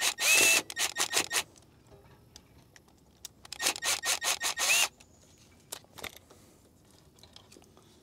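Cordless drill with a bit extension backing out the terminal screws of an old air-conditioner contactor: two short bursts of rapid clicking and whirring, one at the start and one about four seconds in, with faint handling ticks between.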